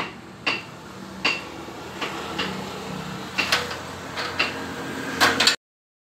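Irregular metallic knocks and clanks from a bare Honda CD70 steel frame being handled and shifted on bricks, about a dozen in all with a quick cluster near the end. The sound cuts off suddenly about five and a half seconds in.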